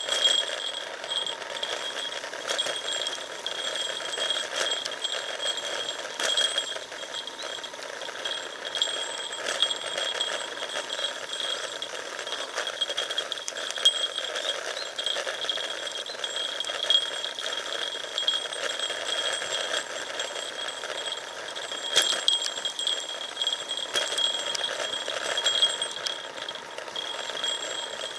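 Road bike coasting downhill over a rough gravel road: tyres crunching and the bike and its handlebar-mounted gear rattling, with frequent sharp knocks from the loose surface over a steady high-pitched buzz.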